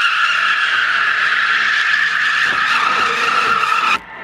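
A sports car's tyres squealing in one long, steady skid as the car drifts on a concrete floor. The squeal cuts off suddenly near the end.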